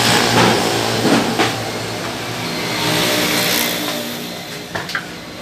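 Motor vehicle engine running steadily, with a few short knocks mixed in.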